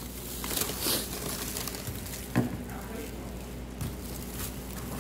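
Rustling and crinkling of plastic wrap and packaging being handled, with a few sharper crackles, over a low steady hum.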